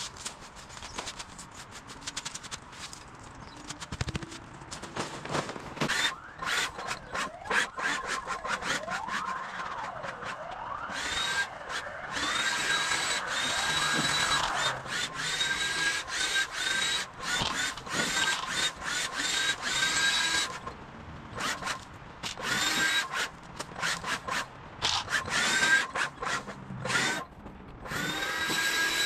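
Electric motor of a cordless garden power tool whining in bursts, spinning up in pitch each time it is triggered: one run of about nine seconds, then several shorter bursts, with scattered clicks and scrapes throughout.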